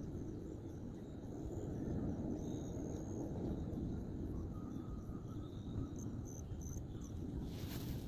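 Late-summer meadow ambience: faint high insect chirps over a low steady rumble of wind on the microphone. Near the end, a rustling crackle of grass and brush sets in.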